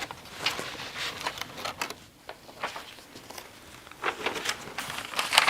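Rustling and light clicks and knocks of objects and papers being handled and rummaged through, quieter in the middle and busier near the end.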